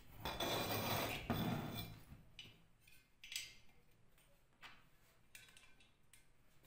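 An electric motor on its metal frame being handled and set down on a wooden board: a scraping, clattering stretch for about two seconds, then a few light metal clinks and knocks.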